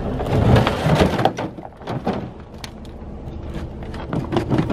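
Yamaha Bravo snowmobile being dragged by hand off a pickup truck and across snow: a scraping rush in the first second or so, then a run of knocks and clunks.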